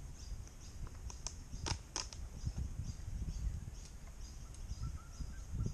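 Birds chirping over and over, high and thin, over a low rumble of wind on the microphone, with a couple of sharp clicks about two seconds in.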